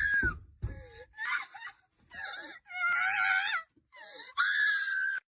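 High-pitched wailing and screaming voice, a string of broken cries that cuts off suddenly about five seconds in.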